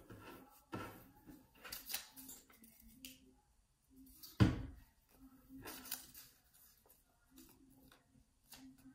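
Construction paper rustling and being pressed down by hand on a tabletop as paper leaves are glued to stems, with a few short scrapes and one dull thump about four and a half seconds in.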